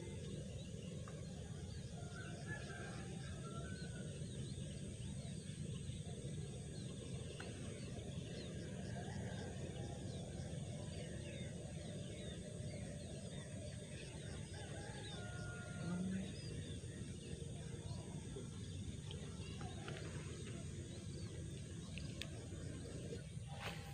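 Faint, steady outdoor ambience: a low wind-like rumble and a fast, even ticking high up. There are a few short squeaky calls about two seconds in and again near the middle.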